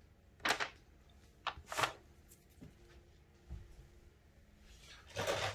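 Brief crinkles and rustles of a plastic laminate sheet being handled, a few short ones early on and a longer rustle near the end.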